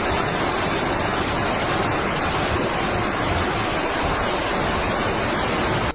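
Loud, steady rushing noise of churning water, with no breaks.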